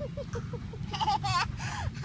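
A small child's short wordless vocal sounds, a few rising and falling cries about a second in and near the end, over a steady low background rumble.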